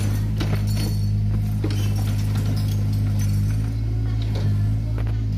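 Kobelco mini excavator's diesel engine running steadily, with scattered knocks and clinks as the bucket digs into soil and broken brick.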